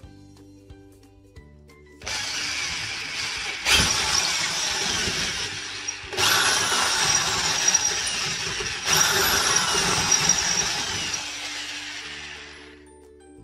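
Power drill with a metal bit boring through drywall into a steel stud, widening a pilot hole. It starts about two seconds in, surges louder three times, and winds down near the end. Background music with steady tones plays underneath.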